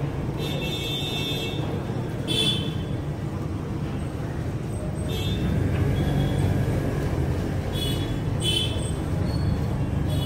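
Steady street traffic rumble, with several brief high-pitched tones cutting in and out over it.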